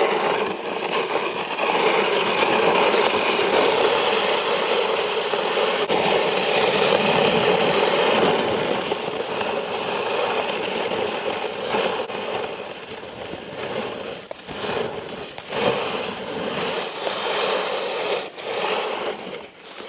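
Snow shovel blade scraping across pond ice as snow is pushed off, a long steady scrape that breaks into shorter strokes with pauses from about twelve seconds in.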